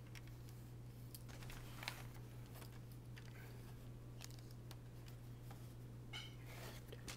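Faint scattered clicks and taps of small plastic laptop parts being handled during a keyboard replacement, with a sharper click about two seconds in, over a steady low electrical hum.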